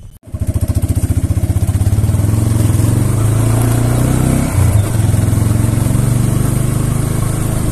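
A vehicle engine running steadily with a fast, even pulse while the vehicle drives along a road. It starts abruptly just after the start, and its note shifts briefly about four and a half seconds in.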